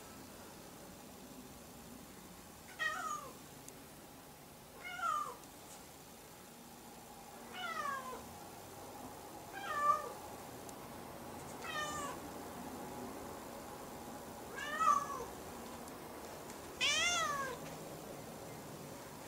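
A domestic cat meowing seven times, about two to three seconds apart. Most meows slide down in pitch; the last one is longer and rises then falls.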